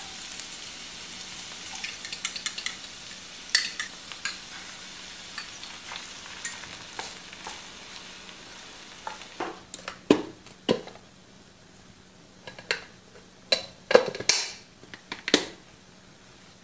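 Diced potatoes and beaten eggs sizzling in a frying pan, stirred and scraped with a wooden spatula. The sizzle thins in the second half, and a run of sharp clicks and knocks follows as the snap-lock lid of a glass food container is unclipped and a knife is handled on a wooden board.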